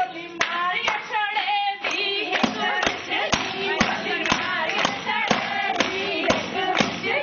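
A group of women singing a Punjabi boli together with a clapped beat. About two and a half seconds in, the claps settle into a steady rhythm of about two a second.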